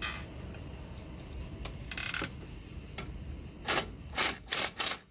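Metal clicks and scraping as the steering yoke on a Kodiak jet pump is worked loose from its shaft by hand, with four short, loud scrapes in quick succession near the end.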